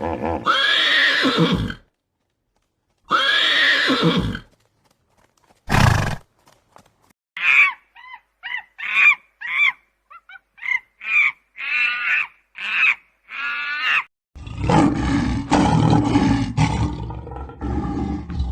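A series of animal calls: two long calls that fall in pitch, a single sharp burst, then a quick run of short high-pitched squeaky calls, followed by a rougher, noisier stretch of calling.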